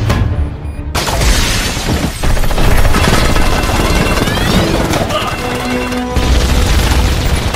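Action-film soundtrack: a music score under booms, crashes and bursts of gunfire.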